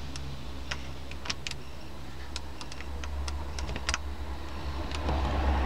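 About a dozen scattered, irregular plastic clicks of buttons being pressed on a car stereo's control panel, over a steady low hum.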